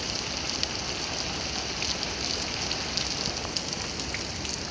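Heavy thunderstorm rain pouring down: a steady hiss of rainfall with many small drop ticks spattering on surfaces.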